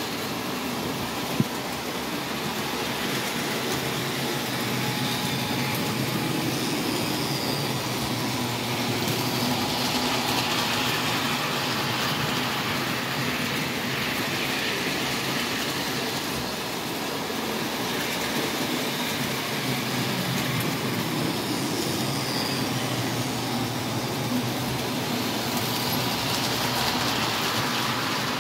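O gauge model trains running on three-rail metal track: a steady rolling clatter of metal wheels and electric motors, with one sharp click about a second and a half in.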